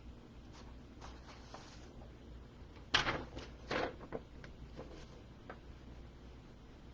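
Quiet room hum with a few light clicks and knocks, the loudest cluster about three to four seconds in.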